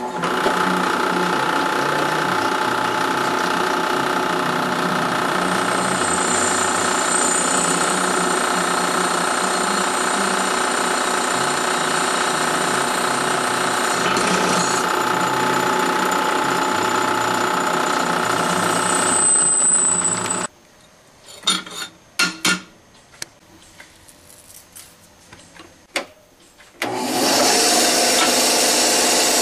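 Benchtop drill press running and drilling into a part: a steady motor hum with a high squeal from the bit through most of the run. It stops suddenly about 20 seconds in, leaving a few light clicks and knocks, and a loud machine starts running again near the end.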